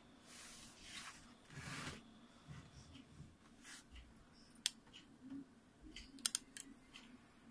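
Faint rustling handling noises, then a single sharp click about halfway through and a quick run of clicks near the end.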